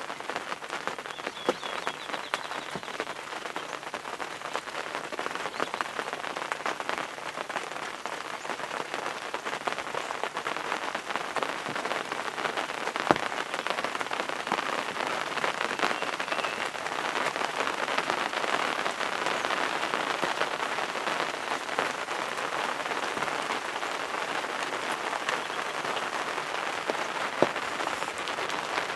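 Steady rain heard from inside a hunting blind, with many separate drops tapping close by and one sharper tap about 13 seconds in.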